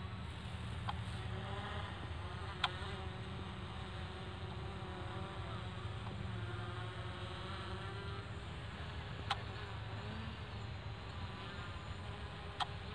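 Eachine EX3 quadcopter's propellers buzzing high overhead, a faint thin whine whose pitch wavers as the motors adjust. A few sharp clicks are heard over it.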